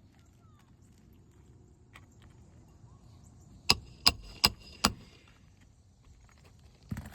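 A hammer striking a metal snake tool (shingle ripper) worked under asphalt roof shingles to free the nails: four sharp metallic strikes, about three a second, with one more near the end.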